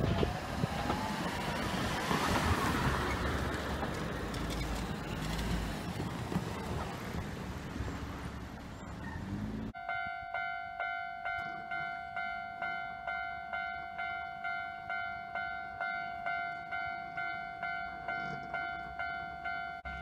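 Loud rushing noise of an approaching train. After a sudden cut about halfway, a Japanese level-crossing warning bell rings with an electronic tone, pulsing about twice a second.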